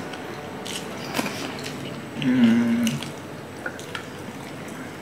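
Mouth sounds of people eating with their hands: small wet clicks of chewing and lip smacking, with one short vocal sound a little over two seconds in.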